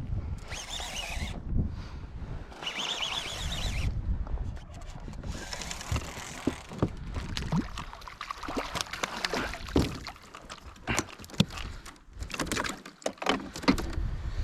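Fishing reel being cranked while a hooked fish is fought, giving irregular clicks and knocks, with wind rumbling on the microphone and bursts of hiss in the first few seconds.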